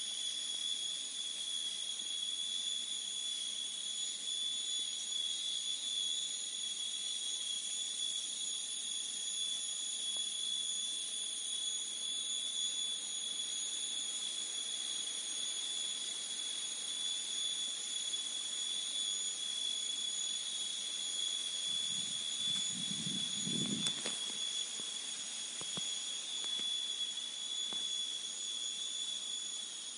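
Tropical forest insect chorus: a steady, shrill, high-pitched drone that holds one pitch throughout. A brief low rumble comes about three-quarters of the way through.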